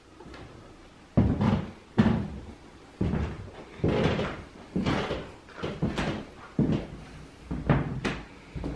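Heavy footsteps thudding on a hard floor, about one step a second, at a slow walking pace.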